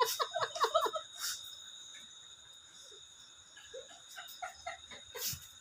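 A person's voice in a quick run of short bursts, like laughing or yelping, in the first second, then a few faint voice sounds later on, over a steady high-pitched tone.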